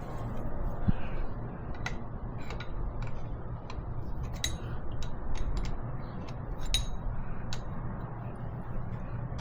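Scattered small metallic clicks and taps, about a dozen, irregularly spaced, from hand work on the diesel engine's injector line fittings, with the nuts and tools knocking against metal. A steady low hum runs underneath.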